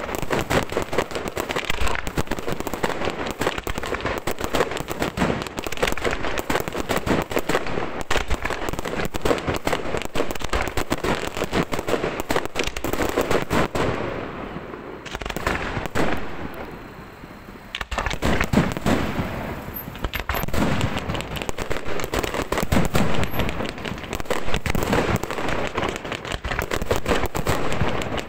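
Aerial fireworks display: a dense, continuous barrage of shell bursts and reports. About halfway through the barrage thins and dies down for a few seconds, then a sharp burst starts it again.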